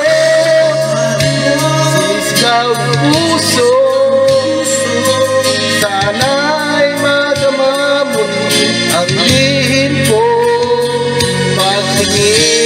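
A Tagalog karaoke song with a sung vocal and long held notes over a steady accompaniment, played through a V2S PB-821BT double 8.5-inch Bluetooth party speaker.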